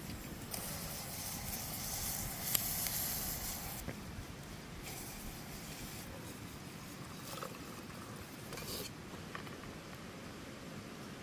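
Campfire cooking: hissing and sizzling in three stretches that start and stop sharply, the first and longest about half a second in, with a few faint crackles.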